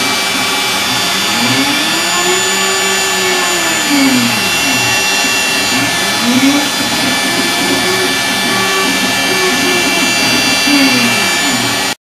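CNC router running: a loud, steady hiss with a low whine that slides up and down in pitch several times, cutting off abruptly near the end.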